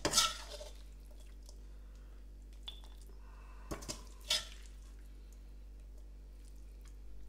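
A few light clinks of a metal serving spoon and tongs against a wok and a bowl as stir-fried udon noodles are dished out, one at the start and a cluster about four seconds in, over a steady low hum.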